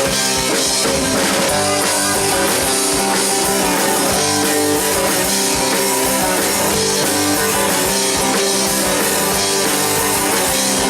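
Rock band playing an instrumental passage between sung lines: electric guitar, bass and drum kit, without vocals.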